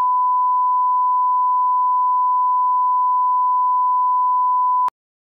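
Steady 1 kHz line-up tone, the pure sine reference tone that accompanies SMPTE colour bars and is used to set audio levels; it holds one unchanging pitch and level and cuts off suddenly about five seconds in.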